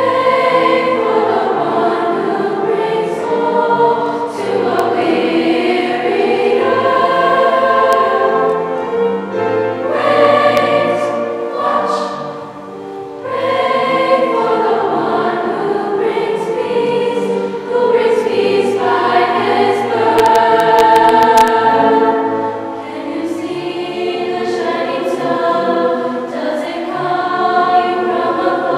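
Mixed choir of women's and men's voices singing a sustained choral piece, with a short lull between phrases about twelve seconds in.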